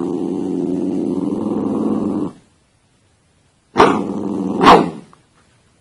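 Small shaggy dog growling and grumbling while it is scratched under the chin, a long growl of about two and a half seconds, then after a short pause a second, shorter one that ends in a sharp, louder yip.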